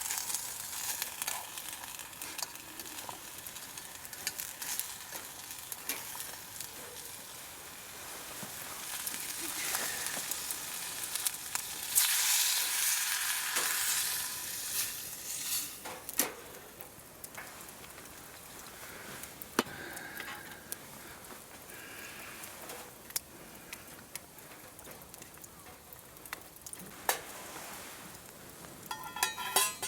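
Food frying and sizzling in a pan, a steady crackling hiss with scattered sharp clicks, louder for a couple of seconds about twelve seconds in.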